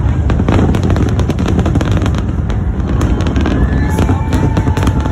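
Aerial fireworks shells bursting in quick succession: a continuous run of deep booms with many sharp cracks on top.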